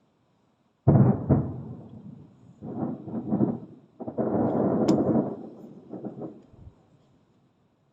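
Fireworks shells bursting in a series of booms. The loudest comes suddenly about a second in, and more follow, each dying away in a thunder-like rumble, with one sharp crack near the middle.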